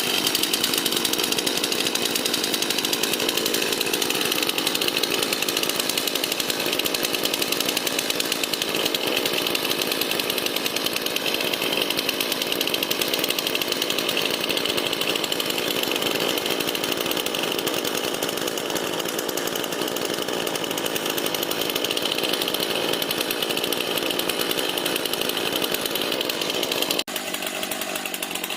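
Chainsaw running steadily and continuously. Near the end it changes abruptly and becomes a little quieter.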